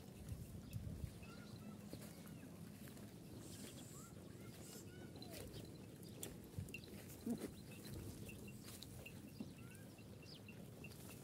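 Faint farmyard sound of goats and sheep feeding on fresh green fodder, with a few brief knocks, the loudest about seven seconds in. Small birds chirp now and then, and a high chirp repeats evenly through the second half.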